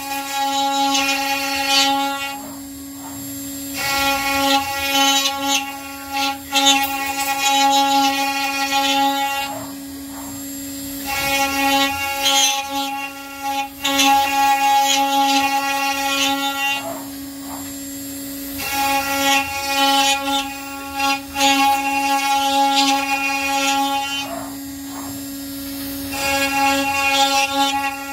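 CNC router spindle running with a steady whine while its bit mills into a wooden table leg. The cutting tone, louder and higher, comes in stretches of about five seconds with quieter gaps of a second or two between them.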